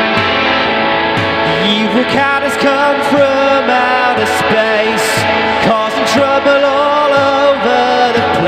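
Rock song's instrumental break, led by guitar over a steady beat.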